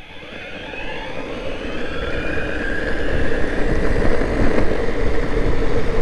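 Boosted Board Stealth electric skateboard accelerating from a standstill at full throttle: its belt-driven motors give a whine that rises in pitch over the first two seconds and then holds. Wind and wheel noise build under it as the board gathers speed.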